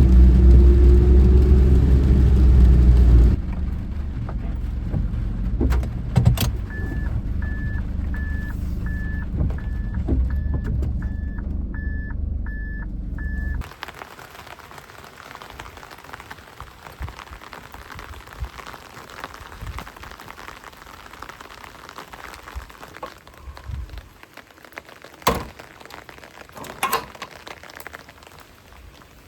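A car's engine and road noise, easing off after about three seconds as the car slows. About ten short, even electronic beeps from the car follow, one every 0.7 s or so, of the kind a car gives while parking. The engine cuts off about 14 seconds in, leaving a faint rushing noise, with a couple of sharp knocks near the end.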